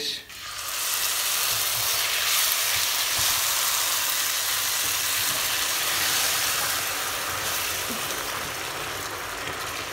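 Pot of toasting pilaf rice sizzling hard as the hot bouillon water goes in. A steady hiss starts suddenly and slowly eases off toward the end.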